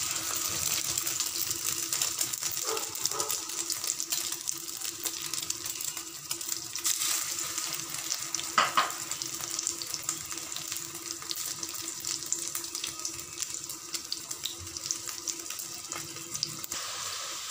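Hot oil sizzling and crackling steadily around chicken shami kebabs shallow-frying on a flat iron tawa.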